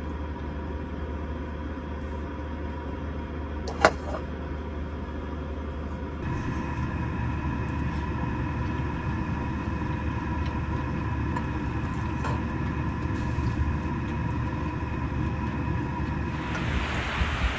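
Steady low mechanical hum in a small camper-van cabin, with one sharp metallic clink about four seconds in. Near the end an even hiss takes over.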